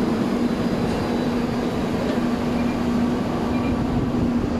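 Scania K230UB city bus's five-cylinder diesel idling at the berth, a steady engine drone with a constant hum.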